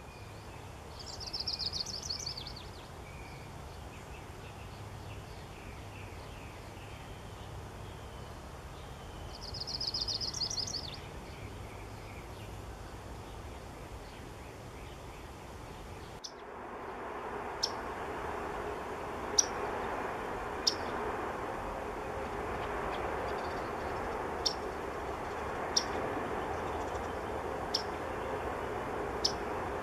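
Yellow-rumped warbler singing a short, rapid trill twice. After a cut it gives about seven sharp single call notes, a second or two apart, over louder steady background noise.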